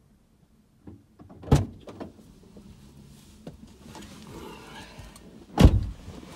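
Fiat 500 driver's door unlatched and opened with a clunk about a second and a half in, rustling and shifting as someone climbs into the seat, then the door shut with a heavy thud near the end.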